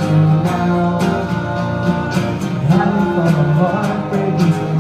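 Music: strummed guitar chords over sustained notes, played in a steady rhythm after the last sung line.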